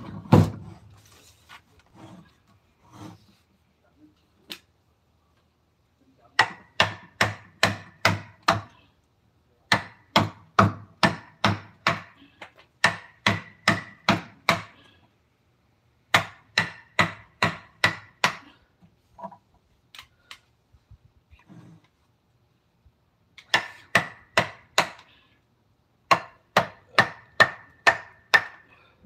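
Mallet driving a carving chisel into wood: quick even taps, about four a second, in runs of a few seconds with short pauses between, each tap with a slight metallic ring.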